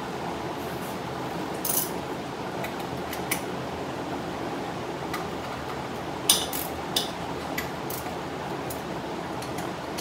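Ratchet and socket clinking against a stamped-steel valve cover as its bolts are loosened: a handful of sharp metallic clinks, the loudest cluster about six seconds in. Under them is the steady rush of a large drum shop fan.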